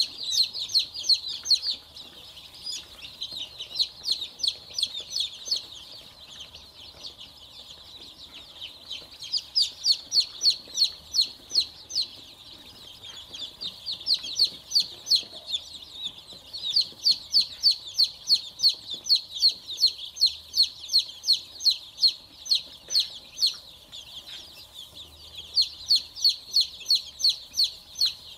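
A brood of Dong Tao chicks peeping: a dense chorus of short, high-pitched peeps, several a second, swelling into louder bouts every few seconds and dropping back between them.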